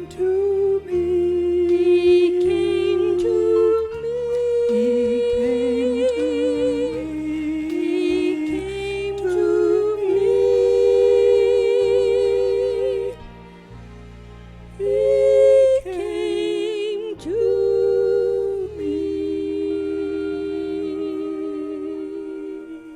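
Slow worship music: a solo voice humming a melody without words, holding long notes with vibrato, over soft sustained low chords.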